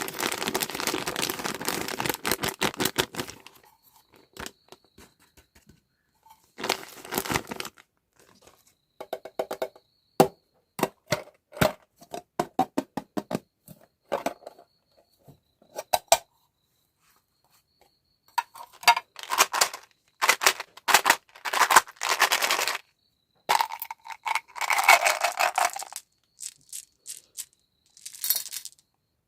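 Plastic packaging being handled and torn open: bursts of crinkling and tearing, with runs of sharp clicks and taps in between.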